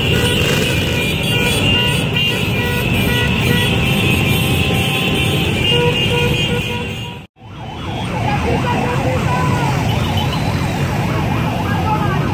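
A mass of motorcycles passing in a caravan, many engines running together. After a momentary dropout about seven seconds in, sirens wail over the engines, from the police motorcycle escort.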